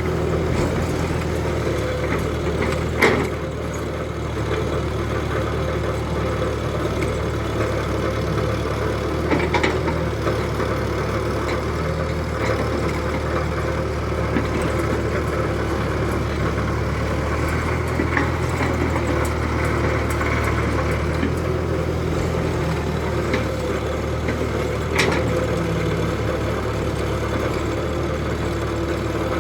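Steady idling engine drone from a radio-controlled excavator and ten-wheel dump truck at work, with a few sharp knocks, the loudest about three seconds in, another near ten seconds and one near twenty-five.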